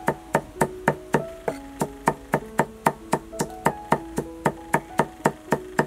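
Cleaver chopping rapidly on a thick wooden chopping block, mincing, in an even run of about three to four knocks a second. Soft melodic background music plays underneath.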